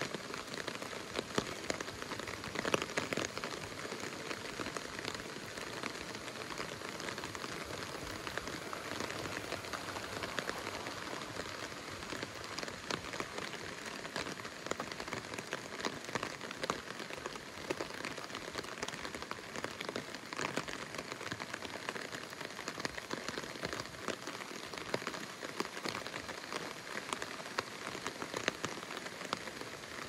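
Steady rain falling, with many small drops ticking on wet hard surfaces.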